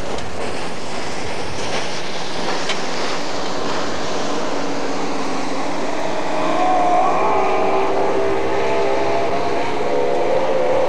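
Speedboat engine running hard at speed, a steady pitched drone whose pitch wavers and slides as the boat runs past, growing a little louder about six seconds in.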